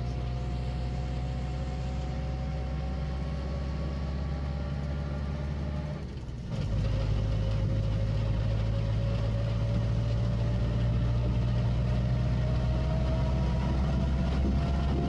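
Motor vehicle running: a steady low engine hum with a whine that slowly rises in pitch. About six seconds in there is a brief dip, and then the hum carries on a little louder.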